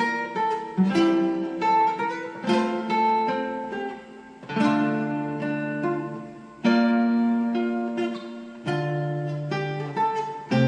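Guitar playing unaccompanied: chords struck every second or two, with single plucked notes between, each ringing and fading away.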